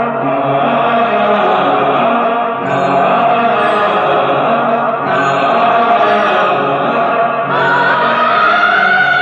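Background music: a song with long held melodic notes over a steady accompaniment.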